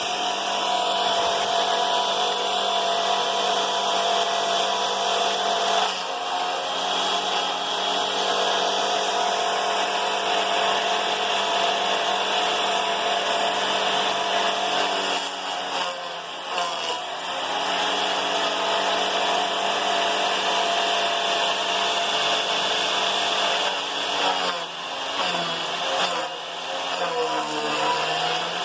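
Homemade wood chipper driven by a 9-inch angle grinder, running with a steady high motor whine. Twice, about halfway through and again near the end, the pitch sags and wavers as the motor is loaded.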